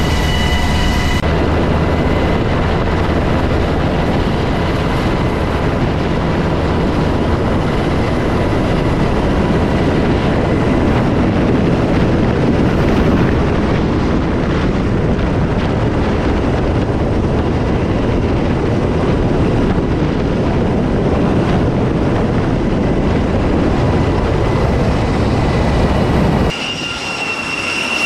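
Loud helicopter noise heard from inside the cabin with the door open: a steady turbine whine in the first second, then a dense, even rush of rotor noise and wind. Near the end it cuts to a quieter engine sound with a high whine.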